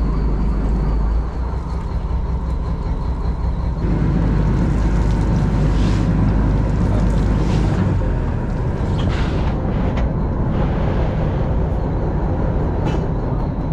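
Fishing boat's engine running steadily, a low drone, with a few brief noises from the deck over it.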